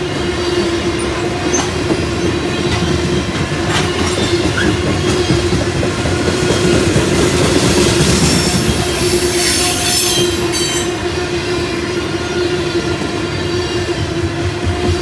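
Empty CSX coal cars rolling past on steel wheels: a continuous rumble and rattle with a steady whining tone from the wheels on the rails. It swells in the middle, with a few sharp clanks.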